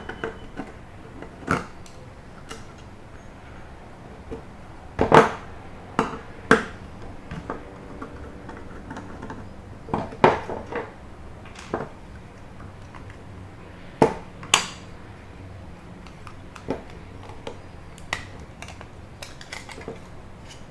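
Metal clicks and clacks of a Ruger P90 pistol frame and tools being handled as its grip panels are taken off: scattered sharp knocks, the loudest about five, ten and fourteen seconds in.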